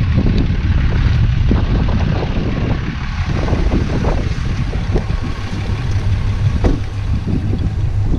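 Wind buffeting the camera microphone as a low, steady rumble, with scattered short knocks from handling.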